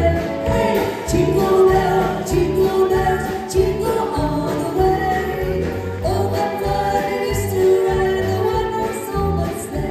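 Live band playing a song with a steady bass beat, amplified through PA speakers.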